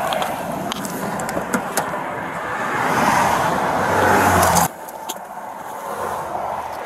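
Highway traffic noise swelling as a car passes at speed, then cutting off suddenly about four and a half seconds in, with a few light clicks.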